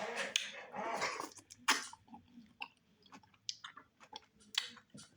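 Wet chewing and lip-smacking of a chewy piece of meat from the stew: a dense stretch of mouth noise in the first second or so, then scattered sharp wet mouth clicks.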